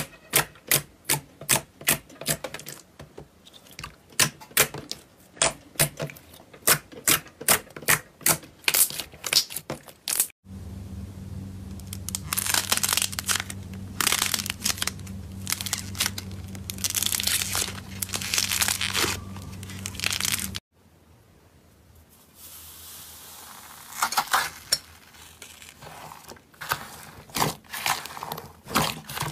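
Slime being squeezed and stretched by hand: a run of sharp pops and clicks, about two or three a second, then crackling and tearing sounds as it is pulled apart. From about ten to twenty seconds in a steady low hum sits under the crackling, and after that the crinkling is softer.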